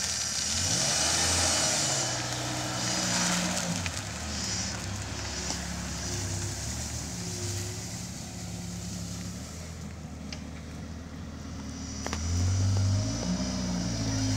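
1987 Ford Thunderbird Turbo Coupe's turbocharged 2.3-litre four-cylinder running as the car is driven at low speed, its note rising and falling with the throttle, then revving up louder about twelve seconds in.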